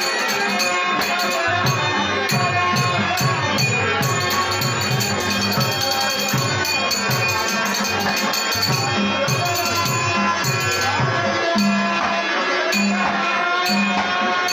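Dashavatar stage accompaniment: a harmonium playing a melody over a steady drum beat and rhythmic metallic jingling percussion.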